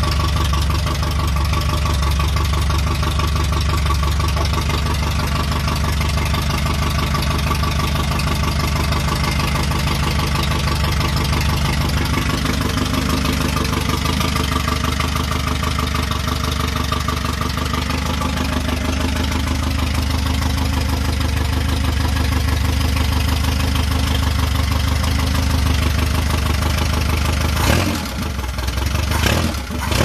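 1969 Ford Capri Mk1 engine idling steadily on its single air-filtered carburettor. Near the end it revs in short, uneven bursts as the throttle linkage is worked by hand.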